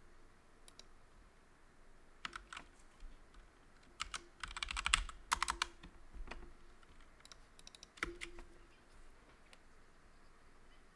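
Typing on a computer keyboard: scattered keystrokes, with a quick run of them about four to five seconds in.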